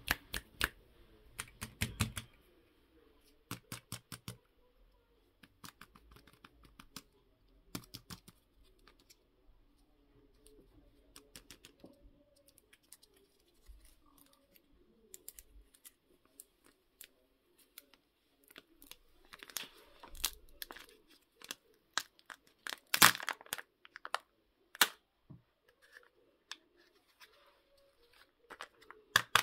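A Kinder Joy egg's foil wrapper being torn and peeled open by hand, crinkling and crackling in irregular bursts, with the loudest crackle about two-thirds of the way through. Later the plastic seal is peeled off the egg half.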